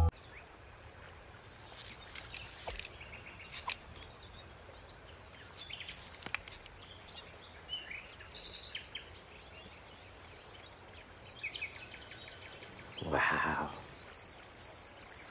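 Quiet outdoor nature ambience with sparse, scattered bird chirps and small ticks. About thirteen seconds in there is one short, louder voice-like sound, and a thin steady high tone near the end.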